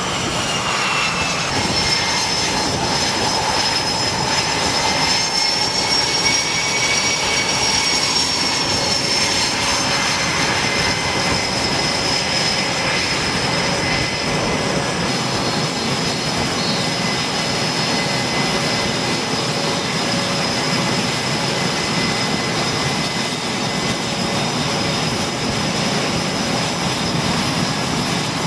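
F/A-18E Super Hornet jet engines running on a carrier flight deck: a steady, loud jet noise with a high whine over it that rises slightly in the first few seconds.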